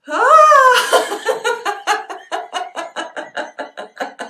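A woman laughing heartily and deliberately in a laughter-yoga exercise: a loud whoop that rises and falls, then a long run of quick, even 'ha-ha-ha' pulses, about five a second.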